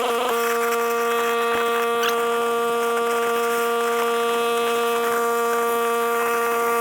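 A steady machine hum at one fixed pitch, even and unchanging.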